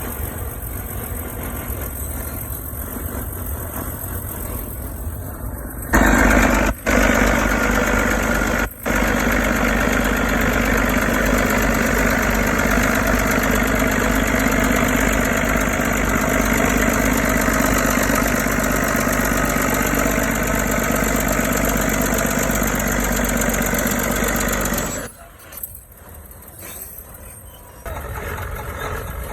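Caterpillar D9 bulldozer's diesel engine running steadily. It jumps much louder about six seconds in, as if working under load pushing, with two brief breaks soon after, and drops quieter for a few seconds near the end.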